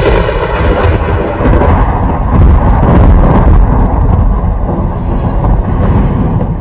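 Loud rolling thunder: a long, low rumble whose sharper upper edge dies away over the first couple of seconds.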